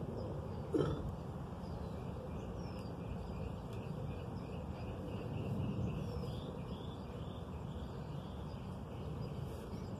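Small birds chirping over and over against a steady low outdoor background noise. A single short knock sounds a little under a second in.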